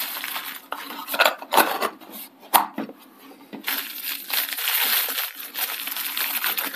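Hands handling a small cardboard box and a bubble-wrapped motor: scattered clicks and light taps, then, from about three and a half seconds in, a steady crinkling of the plastic bubble wrap.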